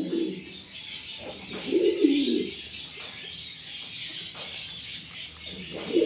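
Indian fantail pigeon cooing once, a low coo about a second and a half in that dips slightly in pitch, over a faint steady hiss.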